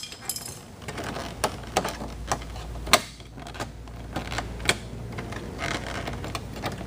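Flathead screwdriver prying at the plastic interior door handle bezel of a Toyota Camry door: scattered sharp clicks and taps of metal on plastic, the loudest about three seconds in.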